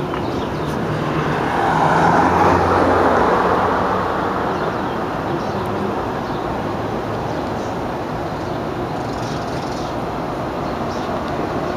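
Steady city traffic noise. A vehicle's engine hum swells to its loudest about two seconds in and fades, leaving an even rushing sound.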